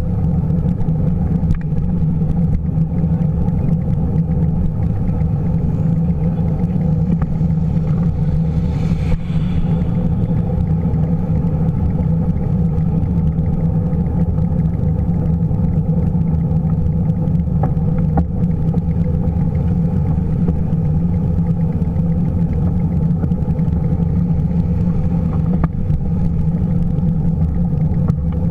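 Steady, muffled low rumble of wind and road noise picked up by a camera riding on a moving bicycle.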